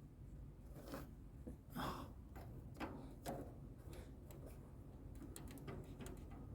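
Faint scattered clicks and soft rustles of hands working the loose stacking-switch wiring connector on an LG sidekick washing machine. The clicks come thicker in the second half.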